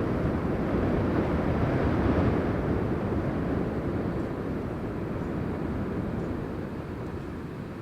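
Rumble of a passing train fading steadily as it moves away, the higher part of the noise dying out first.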